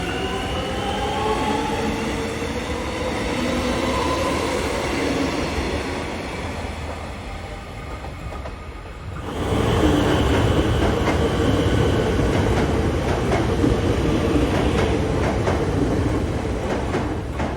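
Electric suburban train running on the rails, its traction motor whine audible in the first half. About nine seconds in, a much louder stretch of close train running noise begins, with rumble and rapid clicks of wheels over rail joints.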